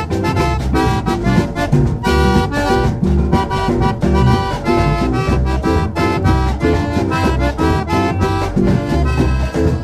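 Malagasy band music: an instrumental passage with a melody of held notes over bass and a steady beat.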